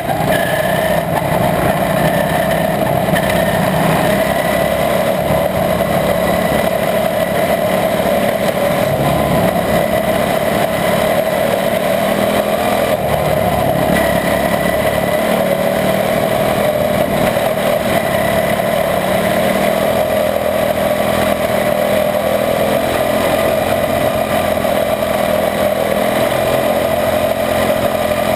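Onboard sound of a quarter midget race car's single-cylinder Honda engine running at steady racing speed, its pitch wavering slightly up and down as it laps the oval.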